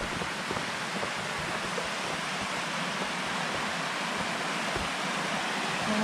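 Steady rushing of a waterfall and creek, growing slightly louder toward the end, with a few faint footsteps on a dirt trail.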